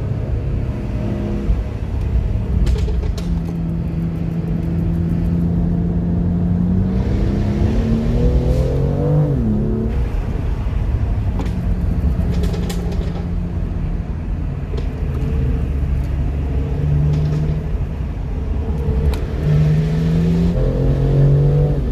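Jaguar F-Type's supercharged V8 running under way, its note climbing in pitch as it accelerates about eight seconds in and again near the end. A few short, sharp cracks come through, typical of the exhaust popping.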